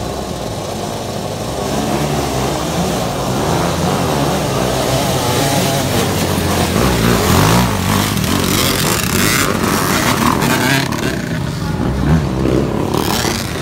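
A pack of motocross dirt bikes revving hard and accelerating off the start line, growing louder as they ride up close and pass.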